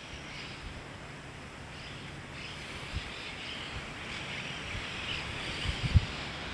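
Outdoor ambience: a steady hiss with faint high chirping, and a few short low thumps, the loudest near the end.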